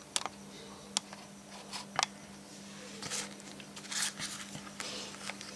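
Handling noises of paper being set down and lined up on a tiled floor: three sharp taps and clicks in the first two seconds, then soft rustling and shuffling of the paper stacks around three to four seconds in. A faint steady low hum runs underneath.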